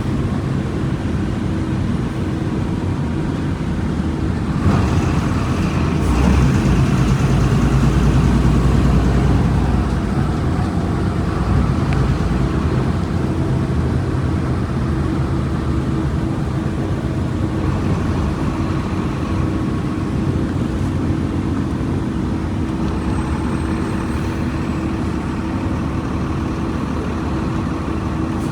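Volkswagen Volksbus 17.230 EOD bus's diesel engine running, growing louder about five seconds in and easing back after about ten seconds, then running steadily.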